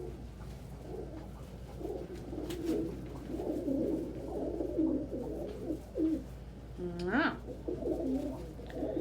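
Several pigeons cooing over one another, a steady layered warbling with no pause between calls.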